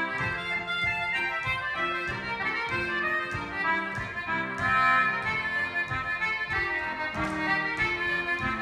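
Irish concertina playing a fast reel, its quick run of notes over piano accompaniment that vamps steady chords on the beat from a Yamaha keyboard.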